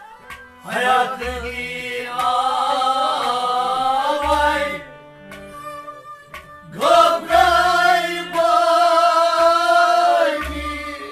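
Kashmiri Sufi song: a man's voice sings two long, wavering phrases over a harmonium's held chords. A low thump recurs about every three seconds.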